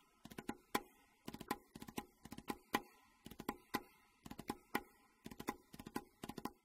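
Sound effect for an animated logo: an irregular run of sharp clicks like keyboard typing, with faint steady electronic tones behind them.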